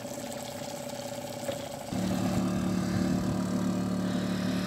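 Small outboard motor on an inflatable dinghy running: a quiet idle with a faint regular pulse, then a louder, steady engine hum from about two seconds in.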